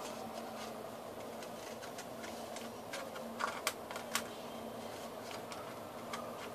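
Paper being handled and worked by hand, with a few sharp crisp clicks about three and a half to four seconds in, over a steady faint hum.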